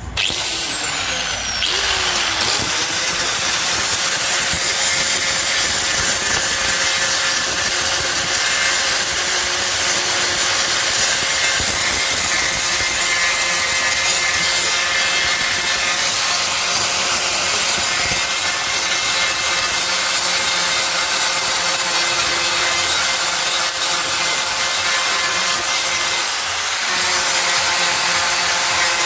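Handheld power tool grinding down plastic-welded seams on a car bumper: it settles within the first couple of seconds into a steady whine over the rasp of abrasive on plastic, with a slight change in tone near the end.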